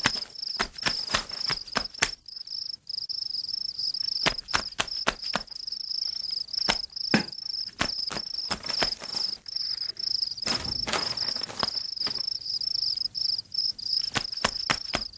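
Steady high-pitched insect trilling, with scattered sharp clicks and knocks throughout.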